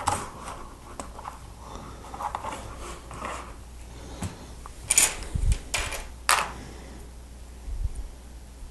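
Plastic Lego Technic parts being handled and pushed together: soft rattling, then three sharp clicks about five to six and a half seconds in, with a couple of dull knocks.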